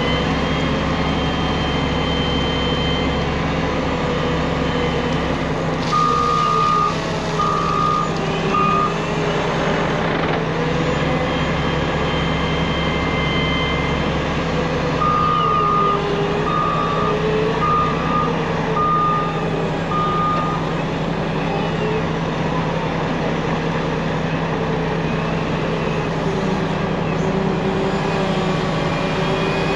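Heavy diesel dump truck engine running, its pitch rising and falling, with a backup alarm beeping: three beeps about six seconds in, then a longer run of six beeps about halfway through.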